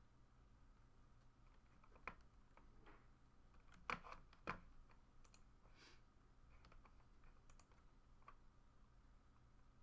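Near silence: low room hum with a few faint scattered clicks and taps, the clearest about two seconds in and a pair near the middle.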